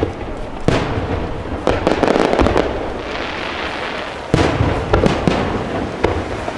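Aerial firework shells bursting in a rapid barrage: sharp booms right at the start and under a second in, a cluster of bangs around two seconds in, and another run of bangs after about four seconds, each trailing off in a rumbling echo.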